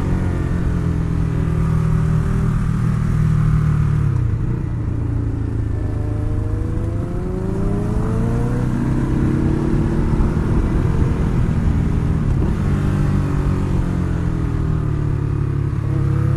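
Ducati Hyperstrada's 821 cc V-twin engine heard from on board while riding, its revs dropping about four seconds in, then climbing and falling again as the throttle opens and closes through bends.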